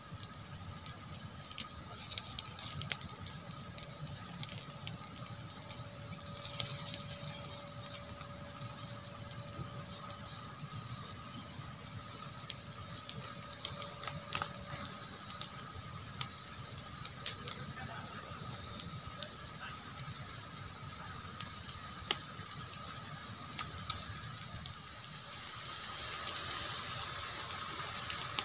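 Small campfire of dry twigs and leaves crackling, with scattered sharp pops over a steady hiss.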